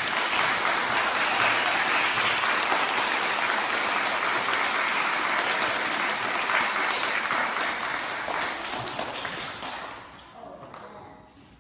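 A room full of seated children applauding, steady at first and dying away about ten seconds in.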